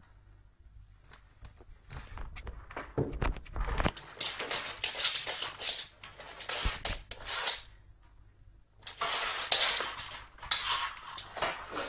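Cardboard box scraping, rustling and knocking against a wooden floor as a cat paws at it and pushes it around, with a few thuds.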